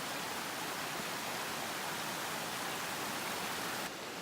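Steady rush of a running creek over rocks, an even hiss with no single sounds standing out; just before the end the sound changes slightly, losing some of its brightest hiss.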